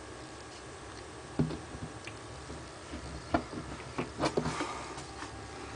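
A scattering of soft knocks and clicks over a low room hum. The strongest come about a second and a half in and in a cluster around four seconds in.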